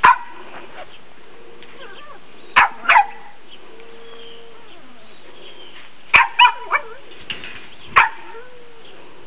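Morkie puppy (Maltese–Yorkshire terrier cross) yapping: seven short, high-pitched barks, one at the start, two around two and a half seconds in, a quick run of three around six seconds in, and one more near the end.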